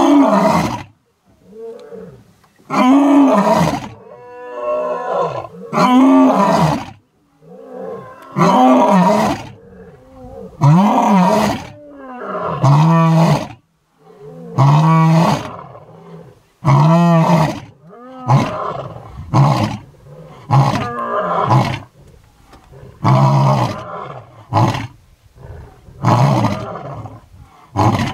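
Lion roaring: a long bout of deep roars, each rising and then falling in pitch, about one every two seconds. Past the middle the roars shorten and quicken into a run of grunts about one a second.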